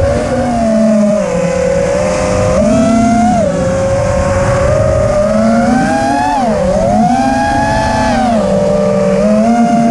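An FPV quadcopter's motors and propellers whine steadily. The pitch rises and falls several times as the throttle changes in flight, with the biggest swells about three, six and eight seconds in.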